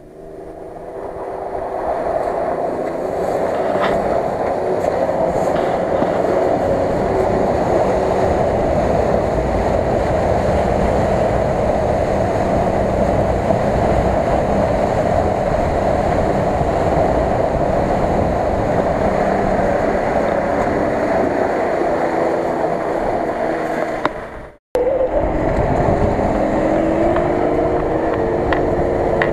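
Nissan Patrol on tractor-tread tyres churning through a muddy, water-filled rut, its engine working hard under load. The engine revs higher near the end.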